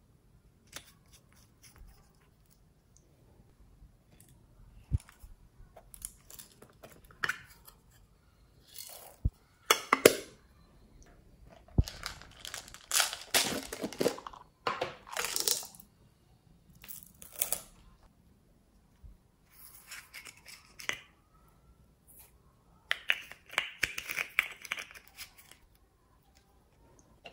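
Small plastic cosmetic containers being handled and opened by hand: irregular clicks, scrapes and crinkly rustling in short bursts, busiest in the middle and again near the end.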